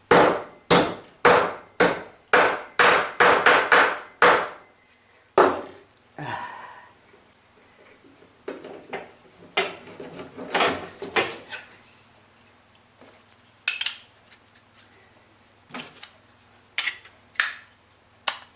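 Ball-peen hammer striking a thin metal tab to bend it over: about ten sharp blows in the first four seconds, coming faster toward the end. Then scattered clicks and knocks as the small metal parts are handled.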